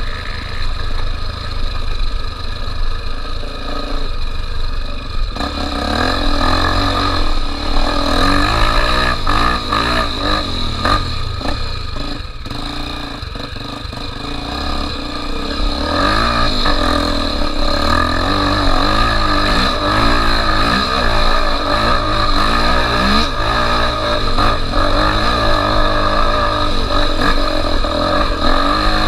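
Honda XR 250 Tornado's single-cylinder four-stroke engine running while the motorcycle is ridden, its pitch rising and falling with the throttle. It gets louder about five seconds in.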